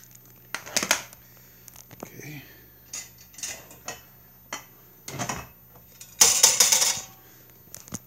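Metal clinks and rattles as a Haller Sapphire kerosene heater's burner chimney is handled and lowered back over the lit wick. There are several separate clanks, with the loudest, longest clatter about six seconds in.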